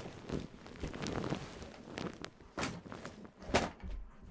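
Footsteps and rustling movement: a handful of irregular soft thuds with shuffling between them, the strongest about two and a half and three and a half seconds in.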